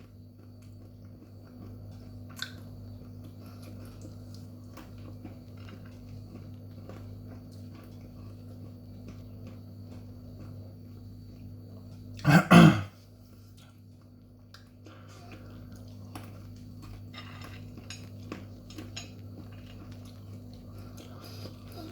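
A person chewing crunchy sugar-coated chilli peanuts, with faint small clicks and rustles over a steady low hum. About halfway through there is one short, loud throat sound.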